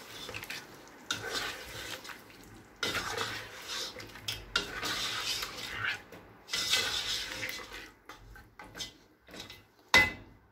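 Black slotted spoon stirring mutton chops through a thick yogurt-and-onion gravy in a nonstick wok, in uneven scraping and squelching strokes against the pan. There is a single sharp knock of utensil on pan near the end.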